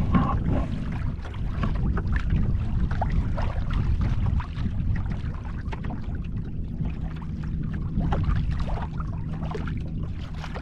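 Water splashing and slapping along the hull of a wooden Selway Fisher 50/50 sailing canoe under way, over a steady rumble of wind on the microphone.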